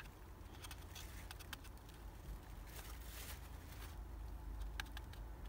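Faint, scattered ticks of a paper seed packet being tapped and handled as seeds are sprinkled, over a steady low rumble.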